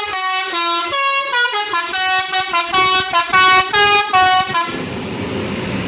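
Basuri musical bus horn, an Indonesian telolet-style horn, playing a quick tune of short stepped notes. It stops about four and a half seconds in, leaving a steady noisy rumble.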